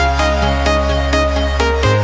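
Electronic dance music with a steady beat of about four strikes a second over a deep held bass note that shifts pitch near the end.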